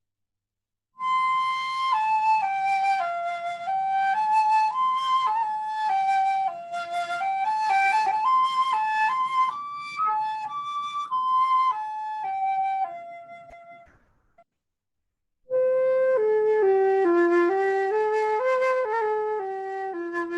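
Solo flute playing a slow melody. A phrase starts about a second in and fades away around thirteen seconds; after a short silence a new phrase begins, pitched lower.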